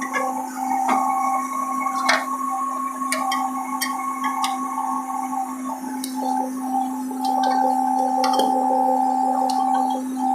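Volumetric dry-mix concrete truck running with its PTO engaged: a steady whining drone held at several fixed pitches, with scattered sharp clicks and knocks.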